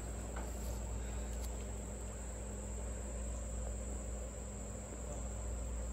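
Steady high-pitched insect chorus, a continuous trill that holds one pitch throughout, over a low background rumble.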